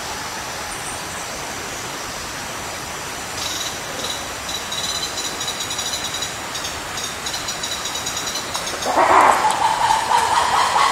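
Black-and-white ruffed lemur calling: a loud, harsh call breaks in about nine seconds in and carries on to the end, over a steady background hiss with faint high chirping in the middle.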